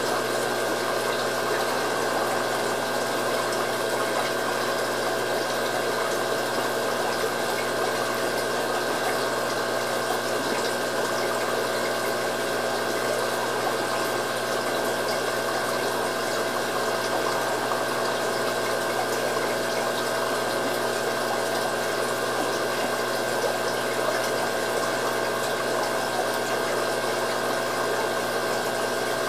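Aquarium pump running steadily: a constant hum with a couple of steady tones over water noise.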